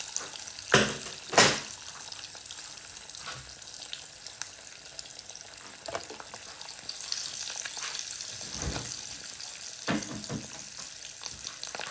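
Food sizzling steadily in a frying pan, with two sharp knocks about a second in and a few lighter knocks later on.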